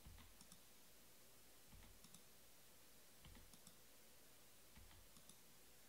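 Faint computer mouse clicks, the button pressed repeatedly, about one double click every second and a half.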